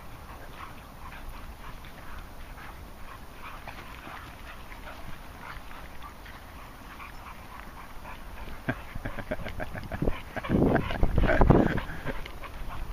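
Several dogs chasing and play-fighting on grass, with short, scattered dog vocal sounds. About ten seconds in, a louder rough noise lasts for a couple of seconds.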